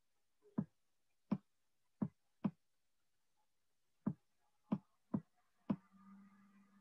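Faint, sharp clicks from a computer input device while a word is handwritten on screen, about eight of them at uneven intervals, one per pen stroke, with a pause of over a second midway. A faint steady hum comes in near the end.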